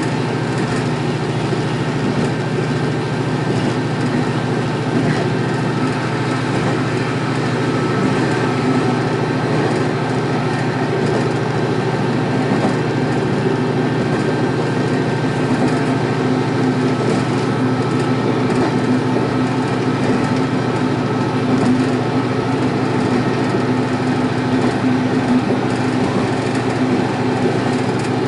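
Sanriku Railway diesel railcar under way, heard from inside the car: a steady engine drone mixed with the running noise of the wheels on the rails.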